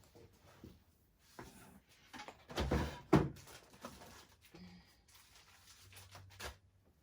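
Craft supplies being handled on a desk: scattered rustles and light knocks, the loudest two thuds about three seconds in.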